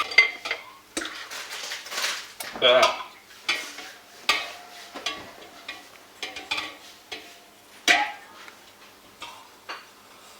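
Spoon stirring in a bowl, clinking and scraping against its sides in irregular strokes, with a few louder knocks, while white chocolate is being melted.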